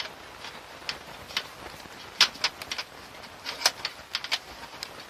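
Irregular clicks and scrapes from a stiff length of twin-and-earth wire being handled where it has come through into the car's interior. The loudest clicks come about two and three-and-a-half seconds in.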